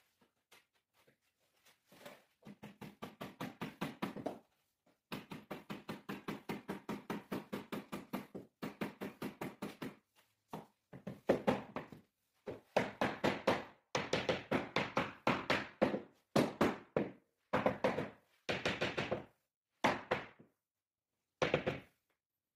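Rubber mallet with a cloth-wrapped head tapping a replacement floor plank down into place. The quick, even knocks come at about seven a second, in runs of a few seconds with short pauses between them.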